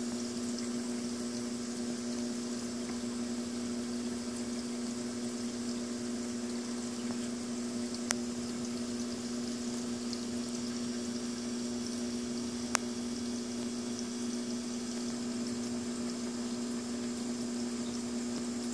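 Reef aquarium equipment running: a steady pump hum with the hiss of moving water, and two short clicks, one about eight seconds in and one about thirteen seconds in.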